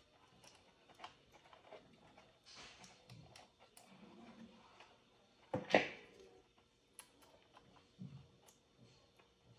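Faint scattered clicks and rustling of thin wires and a plastic toy lamp housing being handled, with one louder short clack a little past the middle.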